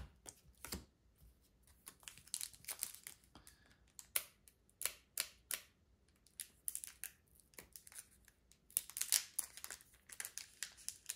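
Pokémon card booster pack being handled: the foil wrapper crinkling and tearing and the cards rustling and clicking against each other, in irregular short bursts with a quieter stretch in the middle.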